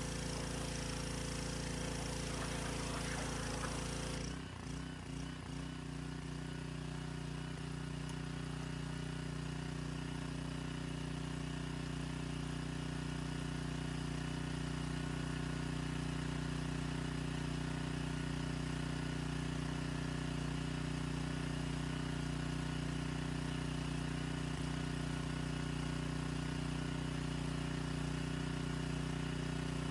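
Gas pressure washer: the water jet sprays against a car wheel for about the first four seconds, then stops suddenly as the trigger is released, while the washer's small engine keeps running steadily.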